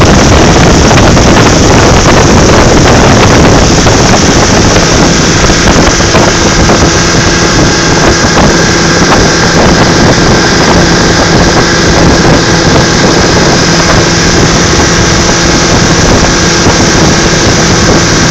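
Outboard motor driving a small motorboat at speed, with wind buffeting the microphone and water rushing past the hull. A steady engine note settles in about four seconds in.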